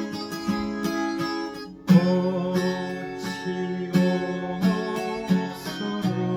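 Acoustic guitar strumming chords, with a louder new chord struck about two seconds in.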